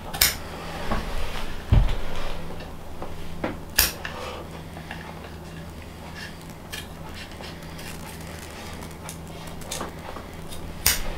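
Hand work on a bow's leather grip at a glass-topped table: three sharp clicks of small hard objects being handled or set down, one just after the start, one about four seconds in and one near the end, with a dull thump about two seconds in and lighter ticks between, over a steady low hum.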